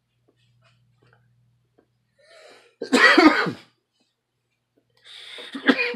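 A man coughing in two rough fits, the first about three seconds in and a second, longer one starting near the end.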